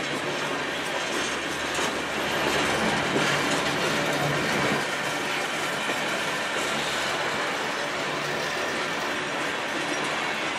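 Covered hopper cars of a freight train rolling past close by, their steel wheels running on the rails in a steady rolling noise that is a little louder from about two to five seconds in.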